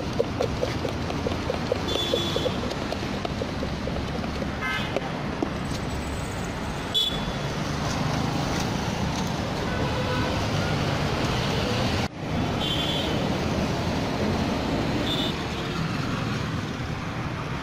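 Street traffic rumbling, with short high horn toots a few times. In the first second and a half, a spoon rattles quickly in a plastic mug, about five clicks a second, as the spiced puffed rice is stirred.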